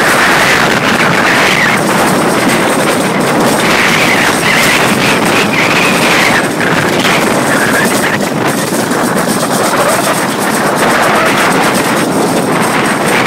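Summer bobsled running fast down a stainless-steel trough track: a loud, steady rushing rumble of the sled on the metal chute, mixed with wind buffeting the microphone. A higher whine wavers up and down through the run.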